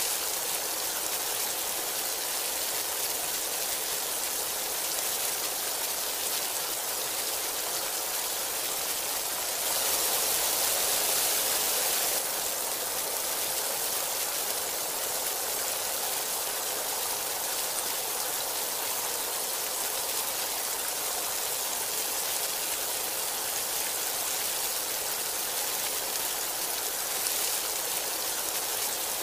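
Heavy rain falling in a steady hiss, briefly heavier for a couple of seconds about ten seconds in.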